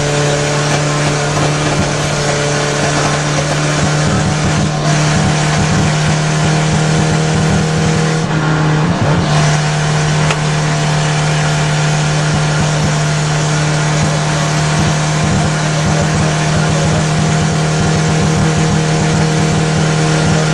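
Rally car engine running hard at speed, heard from inside the cabin over loud road and tyre noise. The sound eases briefly twice, about five and nine seconds in.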